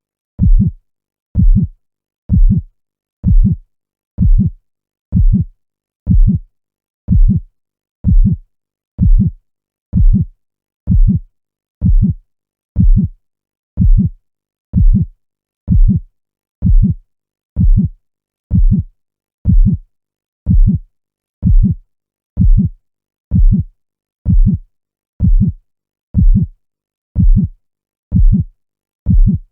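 Heartbeat: a steady lub-dub of low double thumps at about one beat a second, with silence between the beats.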